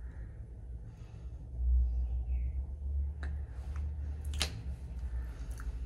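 A low steady rumble with a few small clicks and taps of handling; the sharpest click comes a little past the middle.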